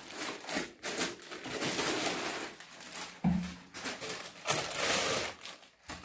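Plastic packaging bags rustling and crinkling in waves as stainless steel steamer pots are unwrapped, with one short knock about three seconds in.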